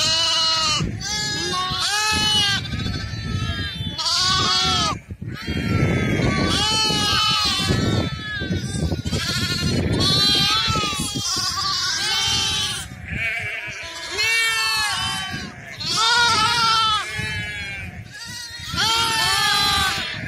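A crowd of young lambs and goat kids bleating nonstop, many calls overlapping one another.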